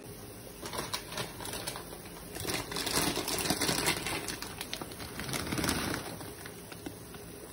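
Plastic bag of dry fusilli pasta crinkling and crackling as it is handled and tipped, busiest around the middle, over a pot of water at a rolling boil.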